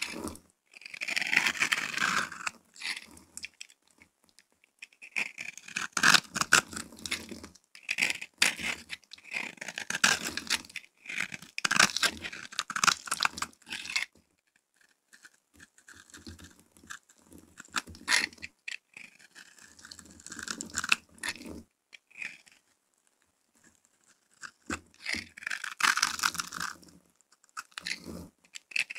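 A knife blade scraping over scored bars of dry soap, shaving off small cubes and crumbs with crisp crunching. It comes in repeated strokes and bursts separated by short pauses.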